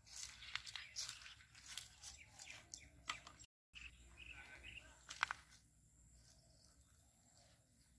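Irregular crackling and rustling of footsteps and handling in dry stems and water hyacinth at a pond edge, with a sharper cluster of clicks about five seconds in, then quiet.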